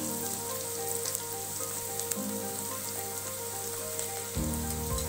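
Crushed garlic, curry leaves and tempering seeds sizzling in hot oil in an aluminium kadai: a steady frying hiss with a few small pops. A low rumble comes in about four seconds in.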